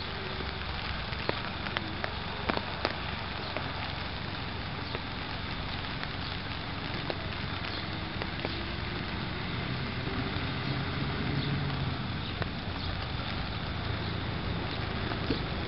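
Diesel rail bus running slowly toward the listener, its low engine drone growing louder from about two-thirds of the way in, over a steady hiss of rain with scattered small crackling drops.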